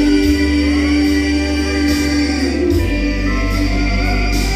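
Southern gospel music: voices held in harmony over a steady instrumental accompaniment between lines of the song.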